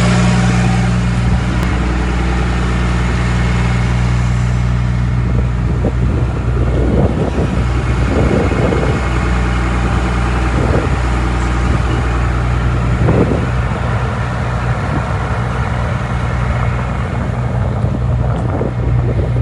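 Fire truck's engine running steadily, a constant low hum, with gusts of wind buffeting the microphone in the middle.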